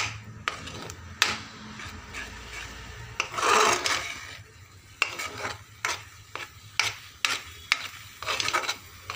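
A metal spoon stirring and scraping a thick mix of moong dal powder and cream around a metal frying pan, in a run of short scraping strokes with one longer, louder scrape about three and a half seconds in.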